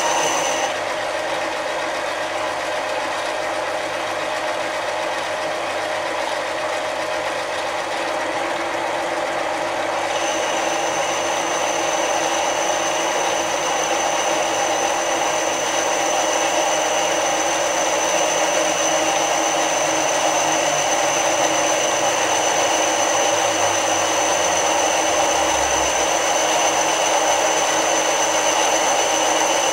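Mini lathe running steadily while a boring bar cuts inside the bore of a cast iron cylinder sleeve. A thin high whine stops about a second in and returns about ten seconds in.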